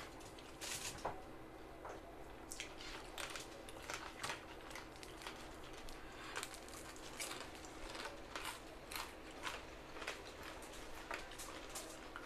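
Mukbang eating sounds: several people chewing and smacking their lips while picking food by hand off a loaded tray, heard as frequent short clicks, crackles and crunches.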